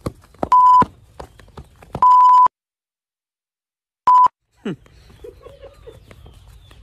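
Three loud, steady electronic beeps of the same pitch, the second the longest, with the sound cut to dead silence for about a second and a half between the second and third: bleeps laid over the soundtrack in editing. Faint footsteps on dry soil come before the first beep.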